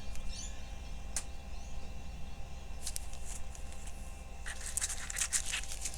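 Small plastic baggies of diamond-painting drills rustling and crinkling as they are handled, with a few light clicks; the rustling grows denser near the end.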